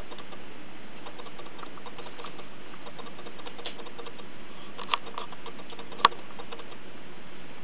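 Kittens' paws and claws scampering and scratching on a cardboard ramp and carpet: small scattered taps and scrapes over a steady background hiss, with two sharper clicks about five and six seconds in.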